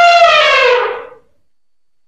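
Elephant trumpeting: one loud, brassy call that holds its pitch, then slides down and fades out about a second in.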